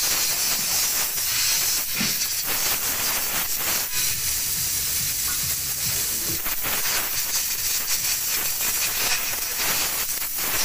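Steady hiss of compressed air from a blow-gun nozzle blowing through the motorcycle oil strainer's mesh screen to clear the dirt out of it, dipping briefly a few times.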